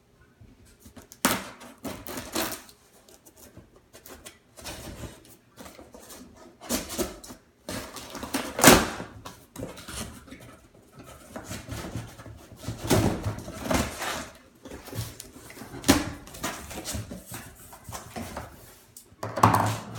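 Cardboard shipping box being opened by hand, with scissors at the tape and the flaps pulled and folded back. Irregular scrapes, rustles and sharp knocks, the loudest about nine seconds in.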